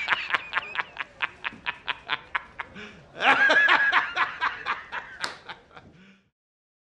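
A man laughing uproariously: a rapid string of short "ha" bursts, about six a second, then a louder, drawn-out howl of laughter about three seconds in that trails off and cuts out.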